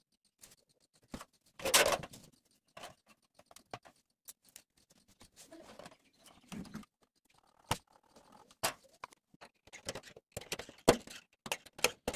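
Plastic ruler and pen being handled on a flattened tin sheet: irregular light taps, clicks and short scratching strokes. The longest and loudest is a scrape about two seconds in.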